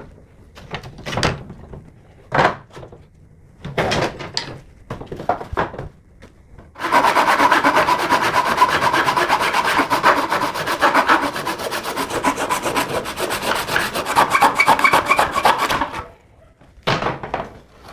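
A Black+Decker hand saw cutting through 18 mm plywood at 45 degrees in a plastic mitre box, in fast, steady back-and-forth strokes from about seven seconds in until about sixteen seconds. Before the sawing there are a few scattered knocks and rubs of wood on the box and table, and a couple more come after it stops.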